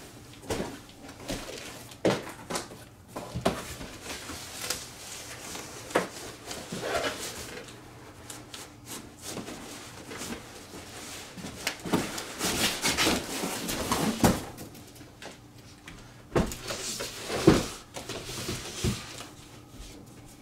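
Cardboard boxes being handled: an inner box pulled out of a larger shipping box, with scraping, rustling and irregular knocks and thumps.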